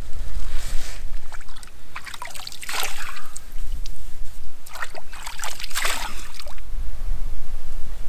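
Water from a shallow pool being scooped and splashed over a head and face by hand, in three spells of splashing. A steady low rumble of wind buffets the microphone throughout.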